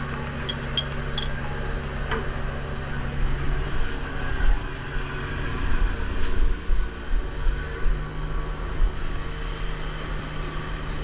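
Fishing boat's engine and deck machinery running with a steady low drone, with a few scattered knocks.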